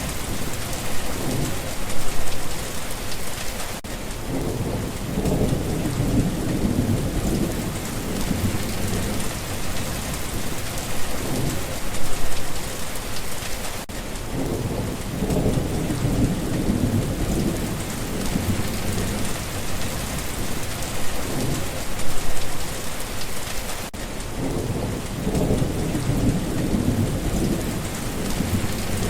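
Steady heavy rain hissing on a surface, with low rolls of thunder. The rumble swells and fades in the same pattern about every ten seconds, as a looped recording does.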